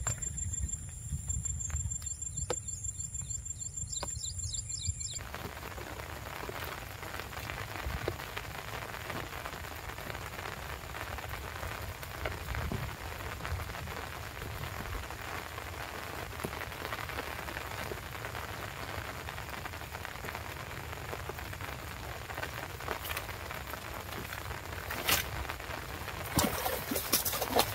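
Steady rain pattering on the pond and the bankside vegetation. Near the end come several sharp splashes as a hooked fish thrashes at the water's surface.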